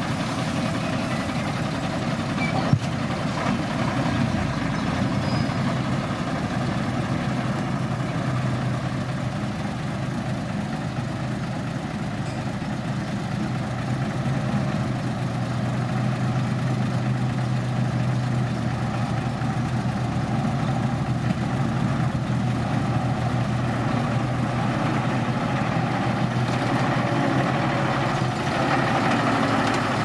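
Diesel dump truck engines idling and running steadily, with one sharp click about three seconds in.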